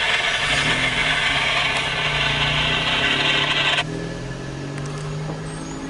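Rolling noise of a passing CSX autorack freight train, a loud even rush of wheels on rail that cuts off suddenly about four seconds in as the train clears. Under it, a car engine idles with a steady low hum.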